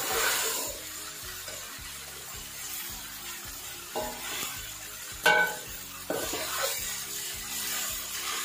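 Noodles and vegetables sizzling as they are stir-fried over high heat in a metal karahi. A slotted metal spoon scrapes and knocks against the pan a few times, loudest about five seconds in.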